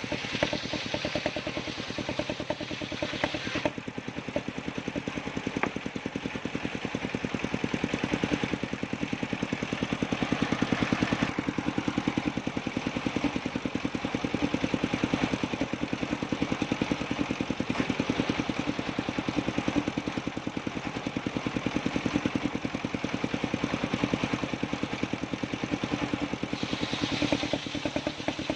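Engine-driven circular sawmill running steadily, its engine's fast even beat under a rasping hiss that comes and goes as the blade cuts sengon wood.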